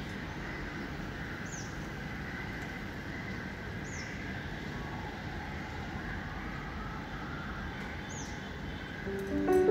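A steady hiss, with three short, high, falling bird chirps spread through it.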